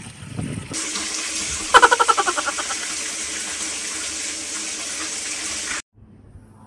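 Herring frying in a pan on an electric stove: a steady sizzle that cuts off suddenly near the end. About two seconds in, a brief loud rapid stuttering sound sits on top of it.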